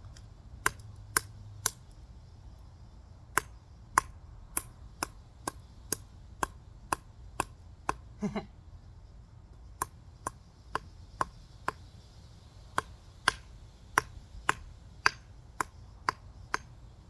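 A plastic remote control being struck again and again to smash it: sharp, hard knocks at about two a second, in three runs of blows with short pauses between them.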